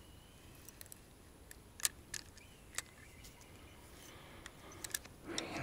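Scattered light clicks from handling a fishing rod and spinning reel, with a brief louder rustle near the end.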